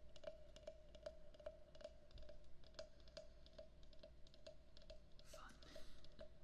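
Soft, steady tapping on a hollow wooden frog percussion instrument, about three taps a second, each giving a short hollow tone. There are fine clicks between the taps and a brief hiss about five seconds in.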